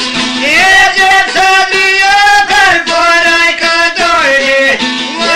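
A man singing an Albanian folk song in high, long-held, ornamented notes, coming in about half a second in and pausing briefly near the end, over a plucked long-necked lute (çifteli).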